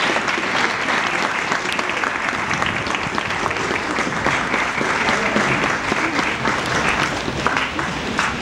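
A crowd applauding, many hands clapping densely at a steady level.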